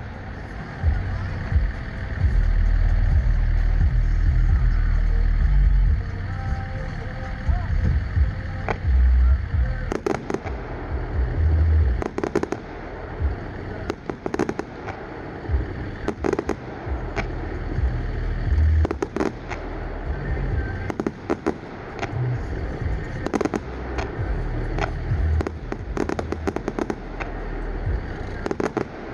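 Aerial firework shells going off: deep booms over the first several seconds, then from about ten seconds in a rapid run of sharp cracks and crackles.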